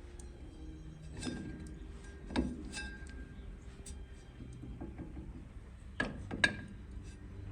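Sharp metallic clinks with brief ringing, about six of them spread out, the loudest two close together near the end. They come from wrench and hub parts knocking together while the spindle nut is tightened to preload the wheel bearings.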